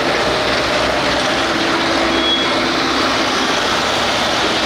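Farm tractor engine running loud and steady, as in a tractor pull run.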